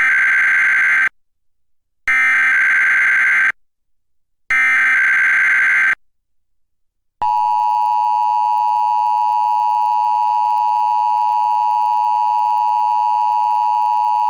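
Emergency Alert System weekly test signal: three bursts of SAME digital header data tones, each about a second and a half long with short silent gaps between them (the first already under way as the sound begins), then about seven seconds in the steady EAS two-tone attention signal (853 and 960 Hz) starts and holds.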